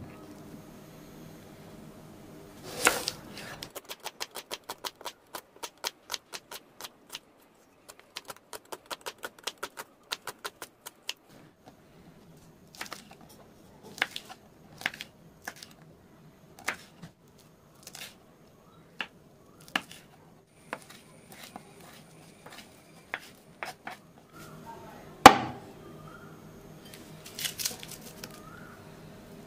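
Kitchen knife cutting onion and green chillies on a wooden chopping board: a quick run of even strokes, about four a second, then slower, separate cuts. Near the end comes a single louder knock, then a soft rustle of sliced onion, over a faint steady hum.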